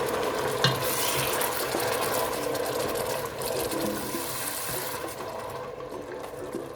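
Onions and crayfish frying in hot palm oil in a pot, a steady sizzle, with a spoon stirring and one sharp knock about half a second in. The sizzle dies down after about five seconds.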